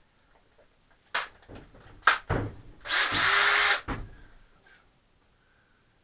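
A few sharp clicks and knocks as a drill and bit are handled. Then the power drill's motor runs in one short burst of about a second, its whine rising slightly as it spins up.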